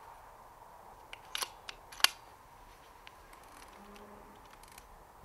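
Brocock Concept XR PCP air rifle being fired and its sidelever action cycled: a cluster of sharp metallic clicks, then one loud snap about two seconds in, followed by a few faint clicks.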